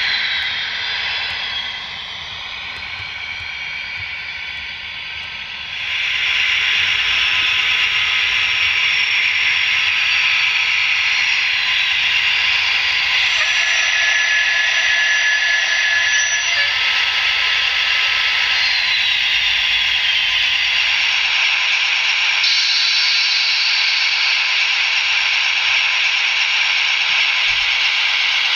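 Sound-equipped HO-scale SNCF BB 67000 diesel locomotive models by REE Models running, their digital sound decoders playing a diesel engine sound through small onboard speakers. The engine noise is steady and thin, with little low end; it drops back about a second in and comes up louder again about six seconds in.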